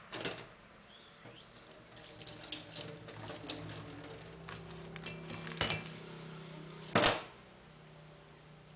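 Kitchen handling noises as a raw blue swimmer crab is cleaned and moved off a wooden cutting board: light clicks and knocks, a brief hiss in the first few seconds, and one loud clunk about seven seconds in.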